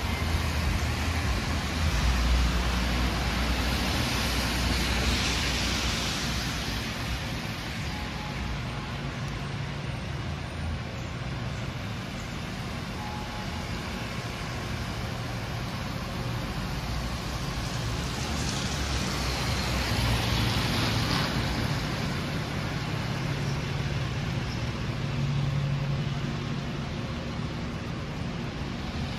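Downtown street traffic: cars driving on a wet road, a steady tyre hiss over low engine rumble that swells twice as vehicles pass close by.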